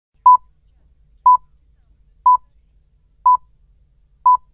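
BBC Greenwich Time Signal, "the pips": five short, identical high beeps one second apart, counting down to the top of the hour.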